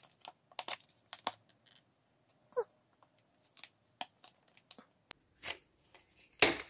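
Crinkling of a thin clear plastic packaging sleeve as a makeup brush is worked out of it: scattered short crackles and clicks, with the loudest crackle near the end.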